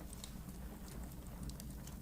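Wood fire in a fireplace crackling, with scattered sharp pops and snaps over a low steady rumble of the flames.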